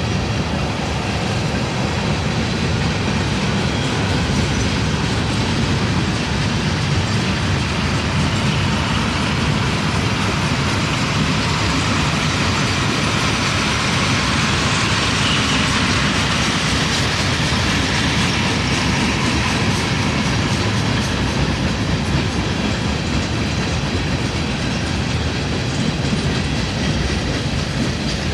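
Manifest freight train's cars rolling past: a steady rumble of steel wheels on the rails, with a higher hiss that swells around the middle.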